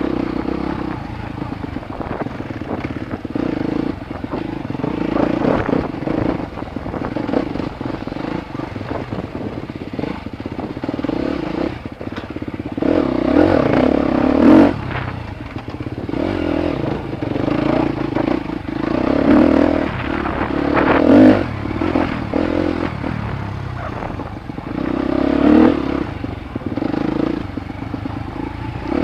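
Dirt bike engine running under riding load on a rough trail, the revs swelling and easing several times with the throttle, loudest around the middle and near the end, with scattered knocks and rattles from the bike over the ground.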